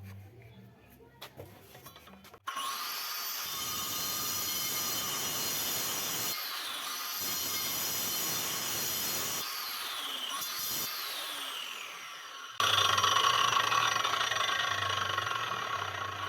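Angle grinder running with a loud, high whine that starts abruptly about two and a half seconds in. Its pitch sags and recovers twice. Near the end it jumps abruptly louder, with a different, harsher whine.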